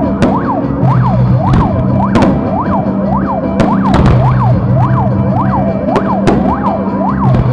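Emergency-vehicle siren in a fast rise-and-fall cycle, about one and a half sweeps a second, with several sharp bangs of firework shells bursting over it.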